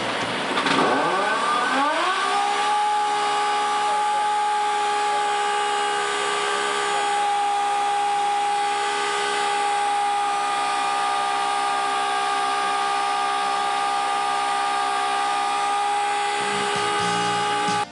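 Air motor of a pneumatic exhaust-valve grinder starting up: its pitch rises over about the first two seconds, then it runs at a steady high whine over a hiss.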